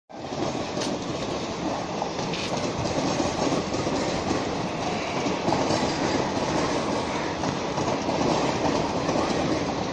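Passenger train on the tracks beside a station platform: a steady rumble of wheels on rails with a few light clicks.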